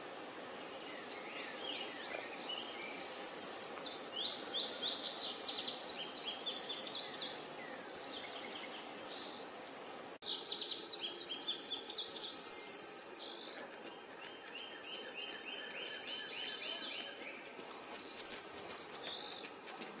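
Songbird singing: two long phrases of rapid, high sweeping notes, then a run of lower, evenly repeated notes and a short high phrase near the end, over a steady outdoor hiss.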